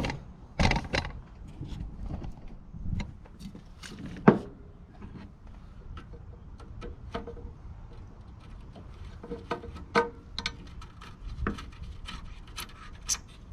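Scattered clicks, knocks and scraping of hand tools on sheet-metal heater parts being worked apart, with one sharp knock about four seconds in.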